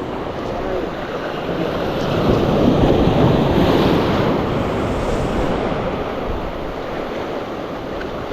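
Waves breaking on the shore with wind buffeting the microphone, a steady rushing noise that swells louder about two seconds in and eases off again.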